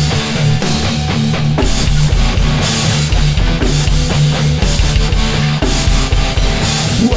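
Instrumental passage of a rock song: a drum kit plays a steady beat over bass and guitar, with no vocals.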